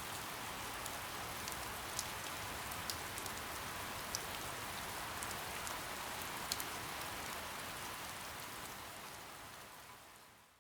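Steady soft rain, an even hiss with scattered sharp drops ticking on a surface, fading out over the last two seconds.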